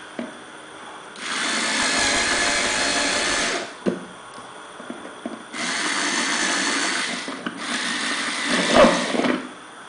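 Cordless drill with a 7 mm bit boring a hole through a thin plastic waste basket, run in three bursts of about two seconds each.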